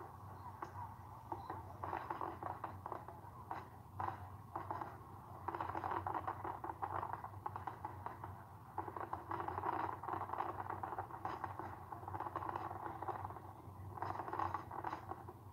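Fireworks crackling and popping, played through a TV speaker and picked up by a phone, so it sounds thin with no deep booms. The crackling comes in bursts, about two seconds in, from about five and a half seconds to eight, from about nine to thirteen, and again near the end, over a steady low hum.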